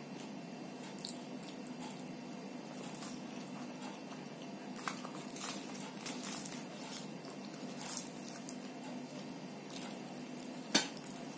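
Eating by hand at the table: scattered small clicks and taps of fingers and food on ceramic plates and bowls, with one sharp click near the end, over a steady low hum.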